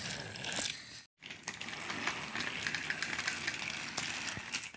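Plastic toy trains pushed by hand along plastic track: a continuous rattling clatter of wheels and handling, with a brief dead-silent break about a second in.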